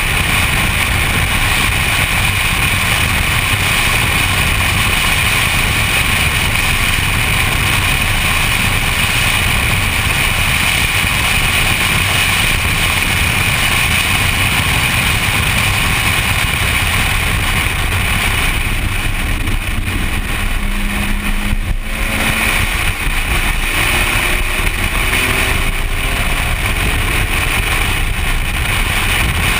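A BMW track car driven at speed, its engine running under heavy wind and road noise at a steady, loud level. About 20 seconds in, the engine's pitch shifts and glides for a few seconds.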